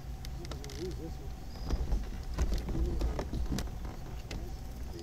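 Irregular clicks and knocks of a fishing rod, reel and kayak being worked while a bass is fought and landed, loudest about two to three and a half seconds in, over a steady low rumble.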